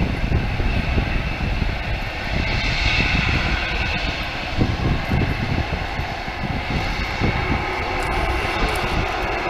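Boeing 757's Rolls-Royce RB211 turbofan engines running with the airliner on the ground, a steady jet whine over a heavy rumble, the whine strongest about three seconds in. Wind buffets the microphone.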